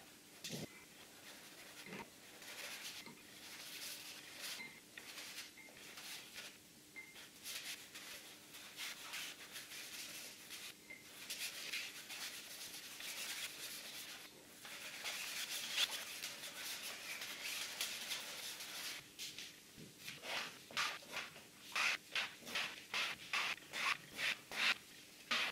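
A paintbrush scrubbing paint across a canvas in sweeping strokes, a steady scratchy brushing that breaks into quicker separate strokes, about three a second, in the last few seconds.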